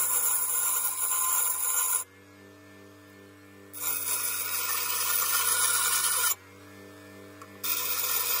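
Bench grinder grinding a hacksawed metal carpet-kicker part, pressed to the wheel three times for a couple of seconds each, to take the cut edge down for a snug fit. The grinder's motor hums steadily in the gaps between the grinds.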